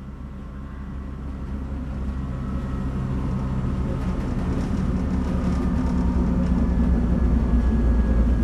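Dolderbahn rack-railway railcar running on its rack track: a steady low motor-and-gear hum with a faint higher whine over it, growing steadily louder.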